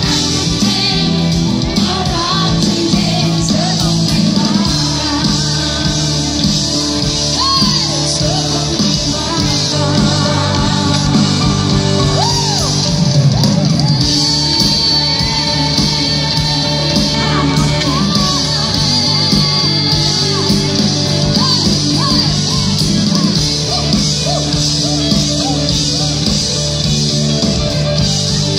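Live concert band playing a pop song with a singer's voice carrying the melody over guitar, bass and drums.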